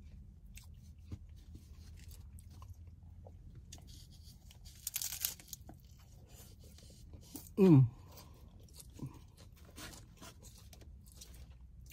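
A hard corn taco shell being bitten and chewed: scattered crisp crunches, with a louder crunching bite about five seconds in. A little later comes a short falling "mm" hum from the eater's voice.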